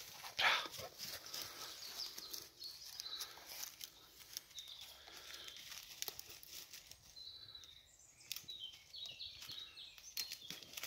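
Rustling and crackling of dry brush, twigs and leaf litter as a hunting dog and a person on foot push through the undergrowth, with a loud rustle about half a second in. Short high chirps sound in the background.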